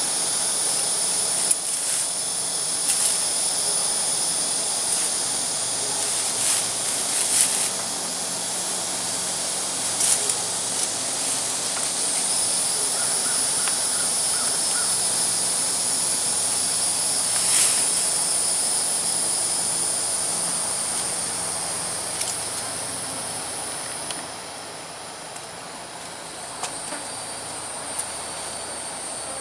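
Insects droning high and steady in the woods, dropping off a little near the end, with scattered sharp clicks from a hammock's tree-strap ratchet being worked.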